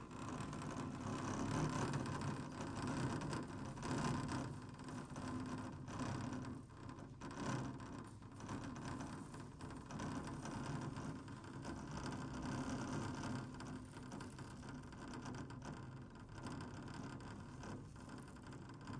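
Steady mechanical whirring hum of an open chairlift running, heard from a moving chair.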